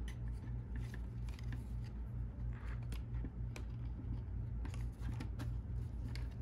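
Light clicks and scrapes of a plastic pry tool and gloved hands working a Mac Pro circuit board loose from its metal frame, over a steady low pulsing hum.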